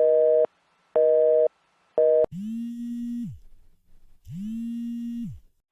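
Telephone busy signal after the call is hung up: three short beeps about a second apart. Then two longer, lower electronic tones, each about a second long, that rise in pitch at the start and drop away at the end.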